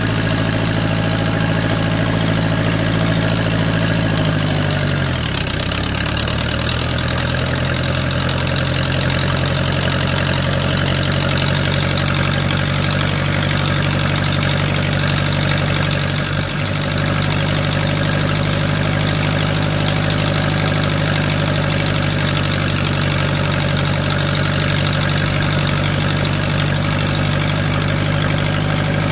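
Case 430 farm tractor's engine running steadily while under way. About five seconds in the engine note drops to a lower pitch and then holds there.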